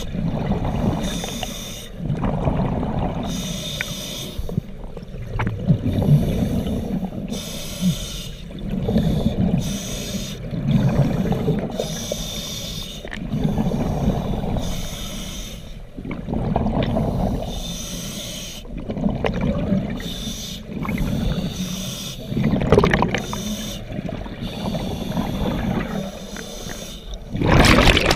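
Scuba diver breathing through a regulator underwater: a hiss on each inhale and a low bubbling rumble on each exhale, repeating every couple of seconds. A louder rush of exhaust bubbles comes near the end.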